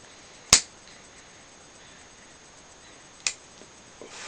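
A lighter being struck to relight a pipe: one sharp click about half a second in and a fainter click about three seconds later.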